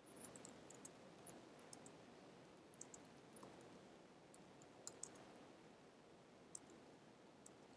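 Faint, irregular clicking of keystrokes on a computer keyboard as a sentence is typed.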